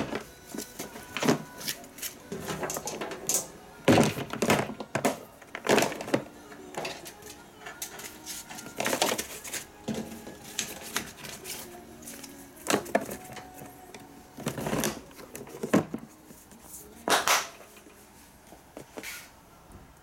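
Handling knocks and clicks as an electric engraver and its cord are packed into a hard plastic carrying case, with the lid shut near the end.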